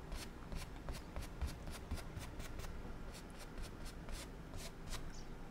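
Paintbrush stroking over wet oil paint on a stretched canvas, a quick uneven series of short, scratchy brush strokes, as the paint is pulled down to make a wet-on-wet reflection.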